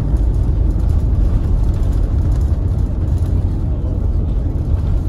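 Cabin noise inside an Airbus A350-900 during its landing rollout, spoilers raised just after touchdown: a steady, loud low rumble of the airliner decelerating on the runway.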